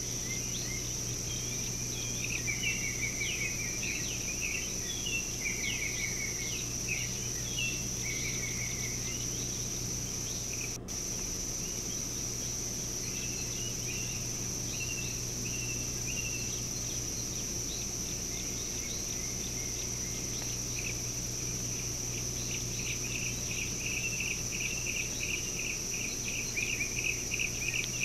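Morning bush ambience: a steady high insect drone with birds chirping and calling on and off, and a fast trilling run of repeated notes over the last few seconds. A low steady hum lies underneath, and the sound drops out for an instant about eleven seconds in.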